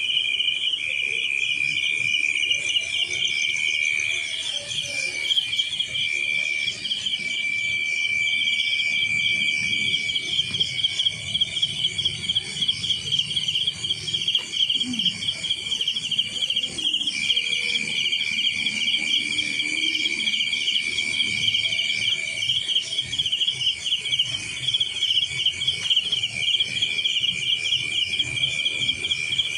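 Night chorus of crickets, several insects trilling steadily at once in high, fast-pulsing bands, one of them pausing briefly a couple of times.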